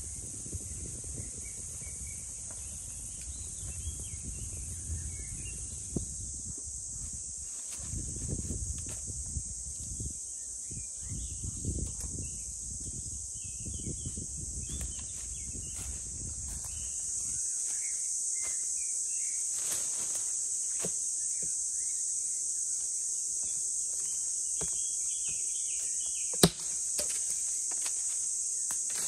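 Forest ambience: a steady high insect chorus with scattered bird chirps, and low rustling of movement through the first half. About 26 seconds in, a single sharp knock stands out as the loudest sound.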